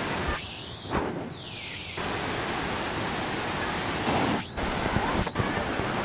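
Steady rush of water tumbling over rocks in small stream cascades. The rush thins out for a second or so near the start and again briefly past the middle.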